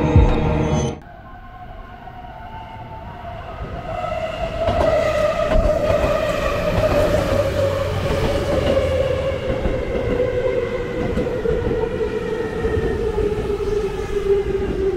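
Ominous background music cuts off about a second in. Then a Seibu Ikebukuro Line electric commuter train runs past close by: the rumble of its wheels on the track, and a motor whine that falls slowly in pitch.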